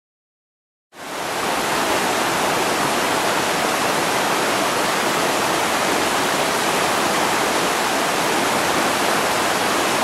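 Fast mountain stream rushing over whitewater rapids, a steady loud rush of water that cuts in abruptly about a second in.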